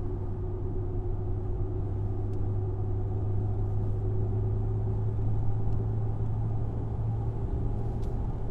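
A 2019+ Ram 1500's 5.7-litre HEMI V8 exhaust, fitted with a Corsa 3-inch stainless resonator delete pipe in place of the factory resonator, heard from inside the cab while cruising at light throttle around 1,500 rpm. It gives a steady low exhaust note with little change in level.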